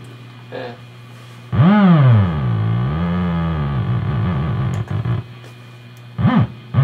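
Thereguin theremin-style module on a modular synthesizer sounding a pitched electronic tone that swoops down, bends up and down again, then holds on a low note before stopping, over a steady low hum.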